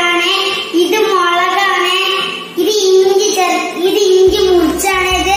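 A child's high singing voice in long held phrases that slide up and down in pitch, with short breaks between them; a steady low hum joins about four seconds in.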